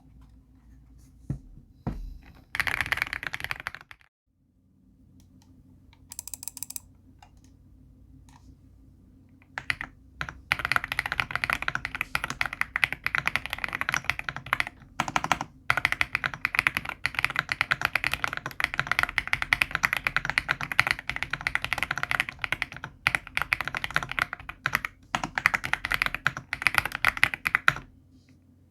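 Typing on a Cidoo ABM066 Alice-layout mechanical keyboard: a few scattered key clicks and a short burst, then a continuous fast run of keystrokes from about ten seconds in until near the end.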